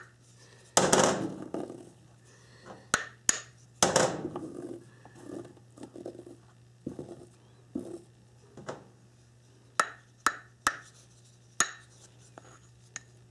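Wooden fork scraping chlorophyll paste off a cloth towel and gathering it into a small glass bowl: two longer scrapes, about a second and about four seconds in, then scattered light clicks and taps.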